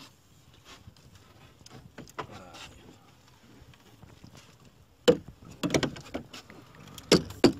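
Loud knocks and thumps on a small fishing boat, starting about five seconds in after a few quiet seconds.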